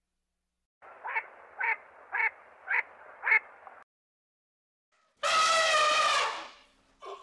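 Animal calls: five short calls about half a second apart, then a longer, louder pitched call about five seconds in.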